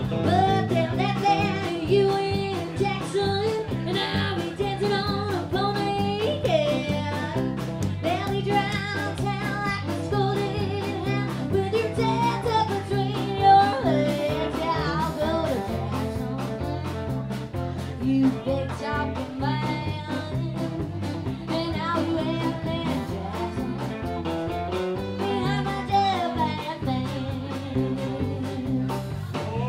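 A woman singing lead into a handheld microphone over a live country band with electric guitar, amplified through a PA. The sung line runs almost without a break over a steady accompaniment.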